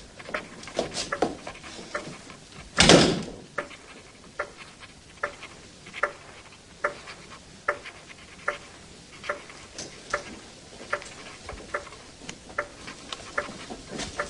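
Slow footsteps of shoes on a hard floor, evenly spaced at a little over one step a second, after one louder knock or thud about three seconds in.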